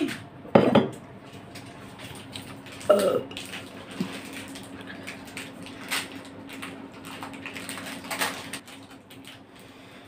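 A woman's hiccups, several short sudden sounds a couple of seconds apart, mixed with metallic clinks of a steel drinking tumbler.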